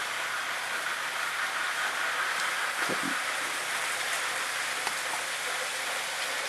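Several motorized LEGO trains running at once on plastic track: a steady, even whir and rattle of their motors and wheels.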